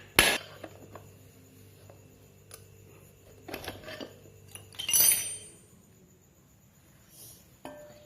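A hammer strike on a ceiling fan's metal housing just after the start, then light metallic clinks and a louder ringing clatter of metal parts about five seconds in as the fan comes apart.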